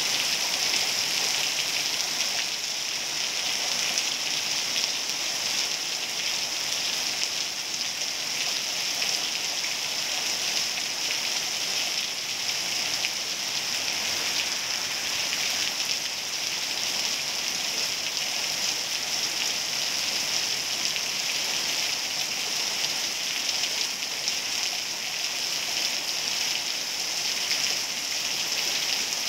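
Heavy rain falling, a dense, steady hiss.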